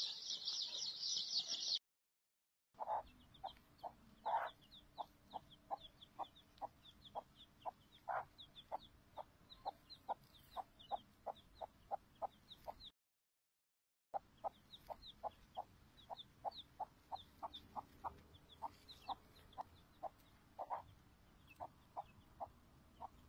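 Chicks peeping in high, rapid chirps at first; then, after a short silence, a hen clucking in a steady run of short clucks a little over two a second, with faint chick peeps over it, broken once by another brief silence.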